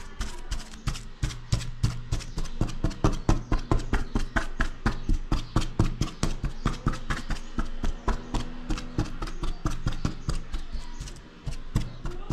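A fork pricking rolled-out pizza dough in a metal pizza pan: quick, regular taps as the tines go through the dough and strike the pan, several a second.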